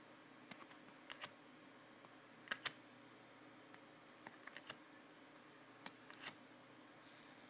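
Faint, irregular clicks and taps of cardboard trading cards being handled and flipped through, some in quick pairs.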